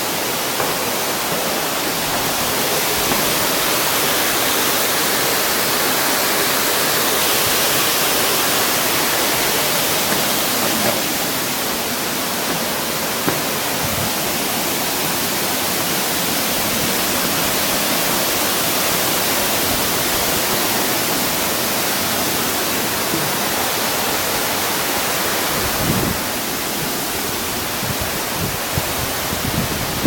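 Mountain stream rushing and splashing over boulders in white-water runs: a steady, even rush of water.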